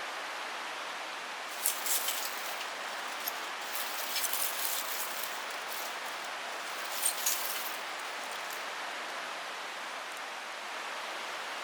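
Scattered sharp crackles and clicks in three clusters over a steady hiss, from a campfire being lit with flint and char cloth.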